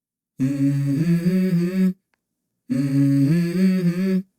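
A hummed melody from the music track: the same short phrase of a few stepped notes, sung twice with a silent gap of about a second between them.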